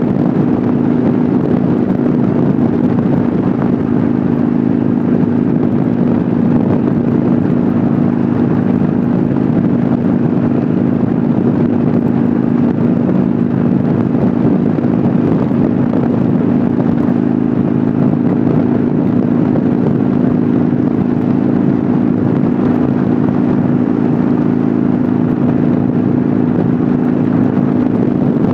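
Harley-Davidson motorcycle's V-twin engine running at a steady cruise, close up from the handlebars, over a constant rush of wind and road noise.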